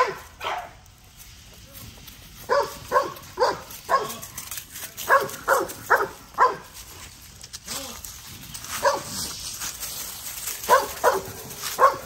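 XL American bully puppies yipping and whining in short runs of three or four quick calls, several times over. Dry leaves rustle underfoot in between.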